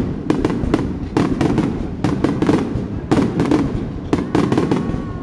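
Aerial firework shells bursting one after another in a fireworks finale barrage: sharp bangs and crackles about three to four times a second over a continuous low rumble.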